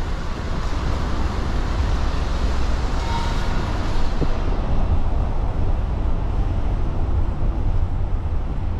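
City street ambience: steady traffic noise over a heavy low rumble, with the higher hiss thinning out about halfway through.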